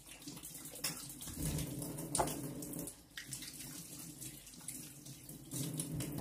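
Water running steadily, with a few knocks.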